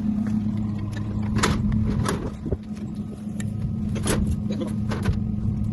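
A vehicle engine idling steadily, with a few sharp knocks or clanks over it.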